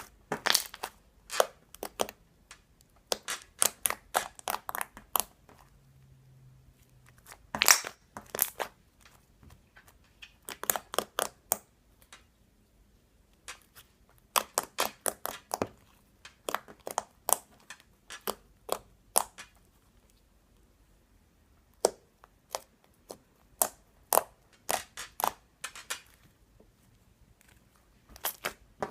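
Slime squeezed and pressed by hand, giving bursts of sharp clicks and pops with short pauses between them.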